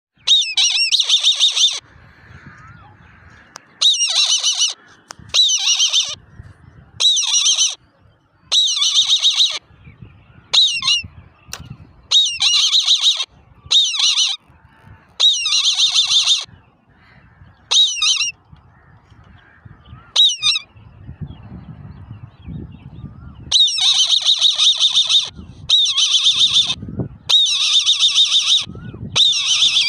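Older eagle chicks calling: repeated bursts of rapid, high-pitched chittering notes, each about a second long, with short pauses between, coming closer together near the end.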